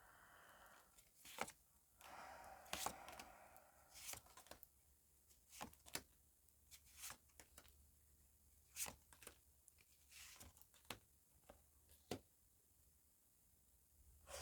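Faint handling of tarot cards: scattered soft clicks and short rustles of cards being moved and laid down.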